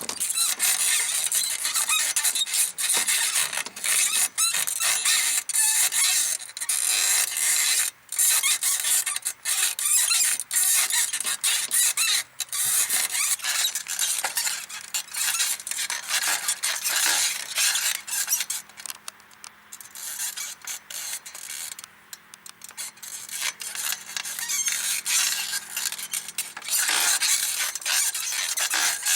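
Small rebuilt Mifa bicycle saddle squeaking and rubbing loudly and continuously under a rider's rocking weight, in rapid scratchy squeaks.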